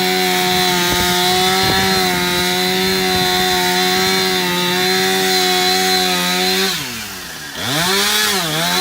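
Chainsaw running at full throttle with a steady high engine note; near the end it drops sharply as the throttle is released, then revs back up.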